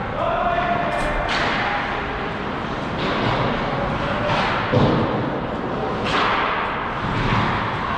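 Ice hockey play in a rink: skate blades scraping the ice in short swooshes, a sharp click about a second in, and a dull thud a little before the middle.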